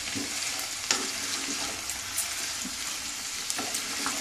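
Chicken pieces and chopped vegetables sizzling in a nonstick pan as they are stirred with a wooden spatula, with a few light knocks of the spatula against the pan.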